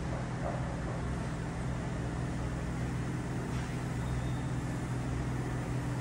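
Steady low mechanical hum of running machinery, holding several constant low tones without change.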